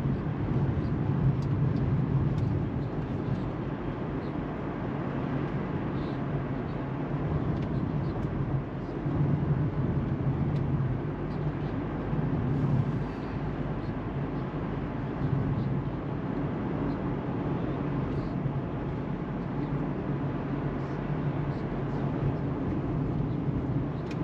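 Car driving on the road, heard from inside the cabin: a steady rumble of engine and tyre noise with a low hum.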